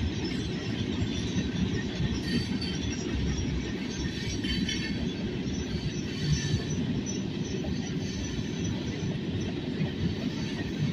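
Freight train cars rolling past on the rails: a steady dense rumble of wheels on track, with short high-pitched wheel squeals coming and going.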